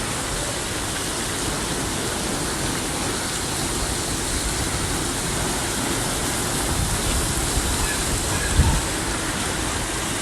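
Heavy rain falling, a steady loud hiss. There is one brief low thump a little past the eight-second mark.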